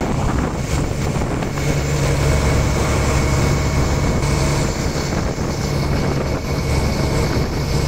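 A fishing boat's inboard engine running steadily, a continuous low drone with wind and water noise over it.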